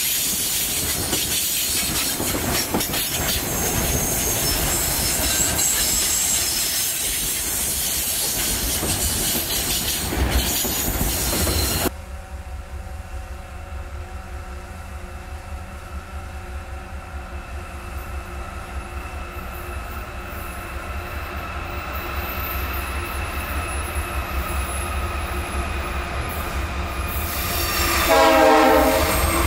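Freight train of tank cars rolling past with wheel and rail noise and some high wheel squeal. After a sudden change, a diesel locomotive's engine drones steadily from inside a tunnel, growing louder as it approaches, and a loud horn blast sounds near the end.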